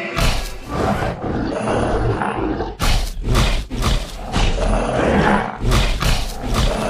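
Dubbed-in dinosaur roars and growls with a deep rumble, coming in several loud surges over background music.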